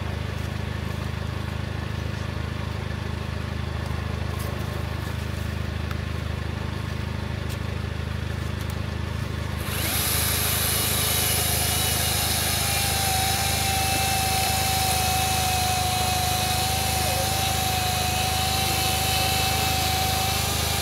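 Chainsaw cutting a fallen tree across a trail, over a steady low engine drone. About ten seconds in the saw comes up to full speed and runs steadily through the log.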